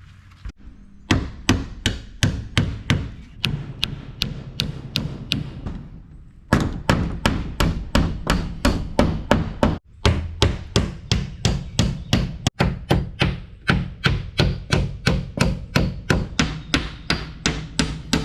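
Hammer driving nails, struck in a steady rhythm of about three blows a second. The blows stop briefly about six seconds in, then resume in a long unbroken run.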